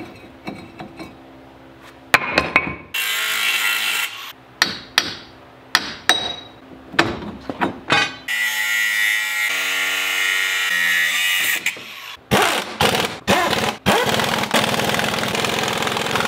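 Hammer blows and metal clanks on a Dodge Caravan's front brake rotor and wheel hub, alternating with several runs of a cordless impact wrench lasting a second to a few seconds each.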